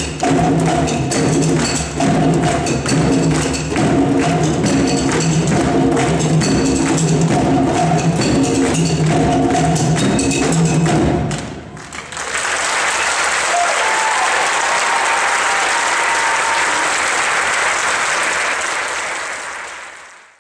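Children's drum ensemble playing hand drums in a repeating rhythm with a pitched part, stopping on a final stroke about eleven seconds in. The audience then applauds, and the applause fades out at the end.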